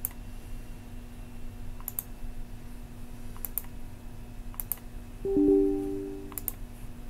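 Computer mouse clicking, five quick press-and-release clicks spread through, with a short two-tone electronic chime about five seconds in, the loudest sound, fading in under a second. A steady low hum runs underneath.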